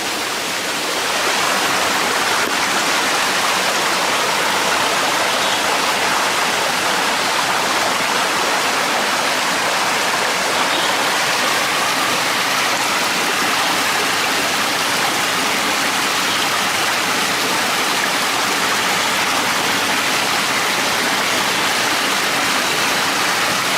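Small stream flowing: a steady rush of running water that grows louder about a second in.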